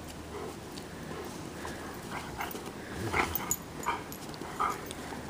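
Bernese Mountain Dogs at play, making a series of short play vocalizations, most of them in a quick run in the second half.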